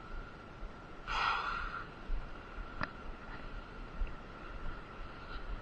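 A man's short, forceful breath out about a second in, with one faint click a little later and a faint steady high tone underneath.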